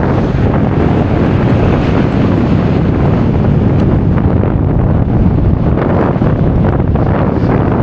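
Strong wind buffeting the microphone in a steady, loud low rumble.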